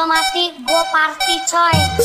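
Background music: a sung vocal line over a break in a dance track with no beat, and the thumping bass beat comes back near the end.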